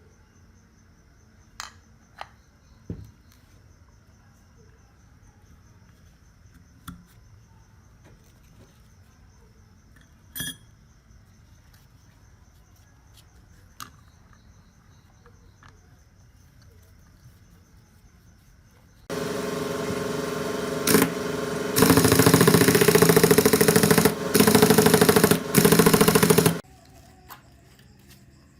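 Scattered light clicks and knocks, then about two-thirds of the way in a power tool's motor runs loudly for several seconds, briefly dropping out a few times before cutting off sharply.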